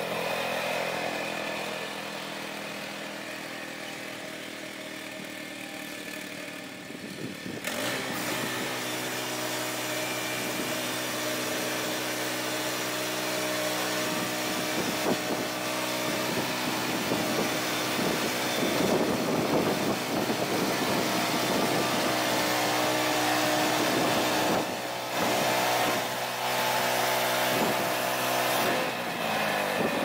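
Woodland Mills HM122 bandsaw mill running: its small gasoline engine runs steadily while the band blade cuts lengthwise through a log being sawn into 2x4s. The cutting noise grows louder about eight seconds in.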